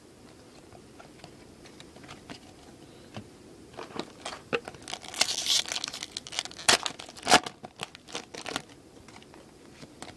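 Baseball trading cards and their foil pack wrapper being handled: a series of light clicks and rustles, with a crinkling tear about five seconds in and a couple of sharper snaps a second or two later.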